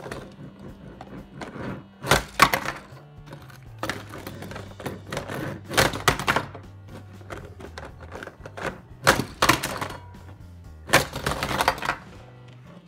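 Small die-cast toy monster trucks clattering as they are run up plastic ramps, flip and crash onto a hollow plastic container and tabletop, in several bursts of knocks and rattles, over background music.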